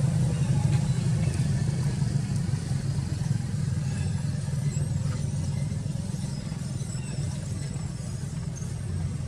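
A low, steady engine rumble from a motor vehicle running, slowly fading over a few seconds.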